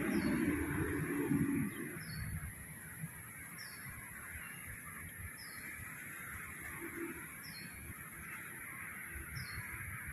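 A bird giving a short, high chirp about every two seconds over a steady background hiss. A low rumble fills the first two seconds.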